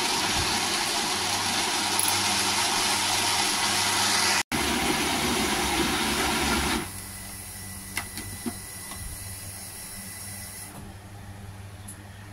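Electric blender grinding fried peanuts, chilies and garlic into a thick paste, running loudly and then switching off about seven seconds in. A couple of light clicks follow as the plastic jar is handled on the base.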